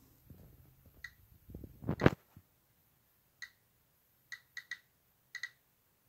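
Rock specimen handled and set down on paper, with a loud thump about two seconds in. Then a Geiger counter's clicker sounds a handful of short, sharp, pitched clicks at irregular intervals, counting radiation from the radioactive thorium mineral specimen.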